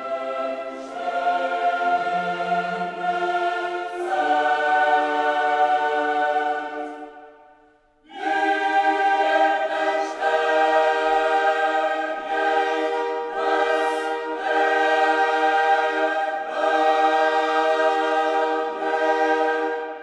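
Background choral music: a choir singing slow, sustained chords. The music fades out about seven seconds in and a new phrase begins about a second later.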